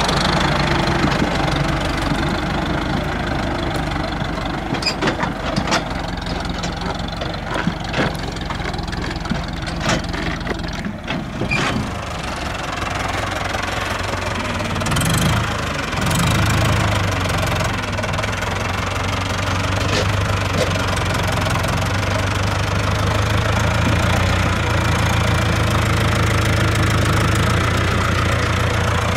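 Renault 652 tractor's diesel engine running steadily, with a scatter of short knocks and clicks in the first half. About halfway through, the engine note becomes stronger and steadier.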